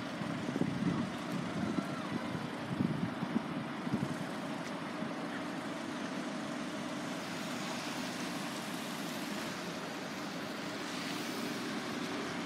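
Wind buffets the microphone in uneven gusts for the first few seconds, then a steady low rumble of road traffic remains.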